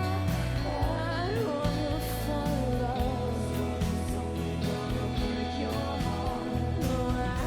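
Background music: a song with a sung melody over instruments and a steady bass line.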